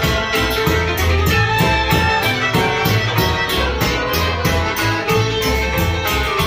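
Live Ukrainian village folk band playing: accordion, fiddle, double bass and a large drum. A steady beat of about four strokes a second runs over a bass line that moves between low notes.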